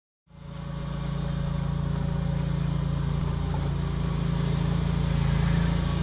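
Engine idling steadily, fading in just after the start and holding an even, low drone.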